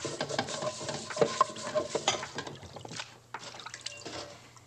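Dishes being washed by hand: water splashing while china plates and cutlery clink, with a few sharp clinks about a second in, busy at first and then quieter.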